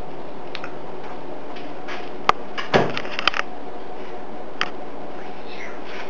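Maytag refrigerator door being handled and shut: a sharp click a little over two seconds in, then a short clatter of jars and bottles rattling in the door shelves, and one more click about a second later, over a steady background hiss.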